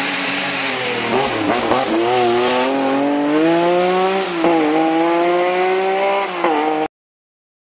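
Race car engine accelerating hard through the gears, its pitch climbing and falling back at each upshift, three times. The sound cuts off suddenly near the end.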